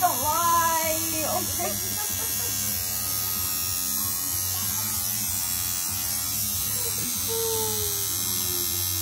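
Tattoo machine buzzing steadily as the artist works on the forearm. A voice makes short wordless sounds about a second in and a drawn-out falling sound near the end.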